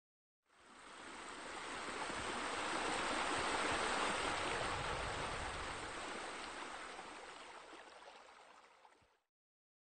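Steady rush of running, splashing water, like pool deck jets arcing into a pool, fading in over the first couple of seconds and fading out near the end.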